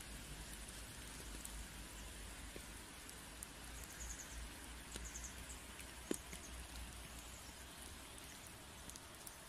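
Faint patter of light rain: a steady soft hiss with scattered irregular drip ticks.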